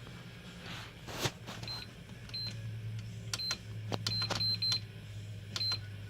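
Buttons on a hobby LiPo battery charger being pressed. Each press gives a click and a short high beep, about seven times at uneven intervals, as its menu is stepped through to a LiPo program. A steady low hum runs underneath, and there is a single handling knock just before the beeps start.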